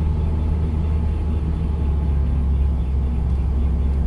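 Steady low rumble of a Honda Fit being driven, heard inside the cabin.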